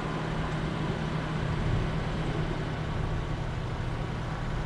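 Car engine idling at a standstill, a steady low hum heard from inside the car, over a faint even wash of background noise.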